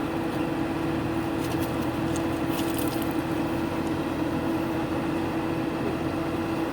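Excavator's diesel engine running at a steady speed, an even hum that does not change, with a few faint clicks about two seconds in.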